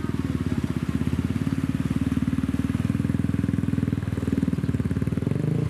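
A motorcycle engine running close by with a rapid, even pulse, its pitch dropping briefly about four seconds in.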